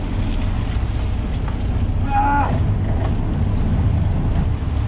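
Sportfishing boat's engines running steadily under way, a constant low rumble mixed with water rushing at the stern and wind on the microphone.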